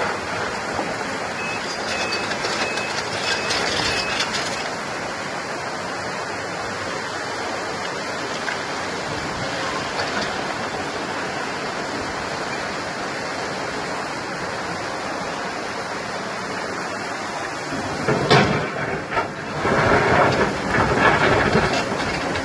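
Excavator with a rock bucket working: steady machine noise, with a short series of beeps a few seconds in. Near the end come louder irregular knocks and scraping as the bucket works rock.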